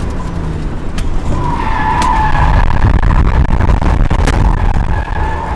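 Twin-turbo Nissan 300ZX drifting, heard from inside the cabin: its V6 runs hard under load while the rear tyres squeal, loudest about two seconds in. A few sharp clicks cut through.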